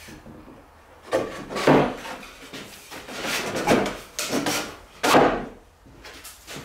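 A long wooden board being pushed down into a tight slot between two wooden workbench tops: three bursts of wood scraping and rubbing against wood. The fit is tight because the board is slightly bowed.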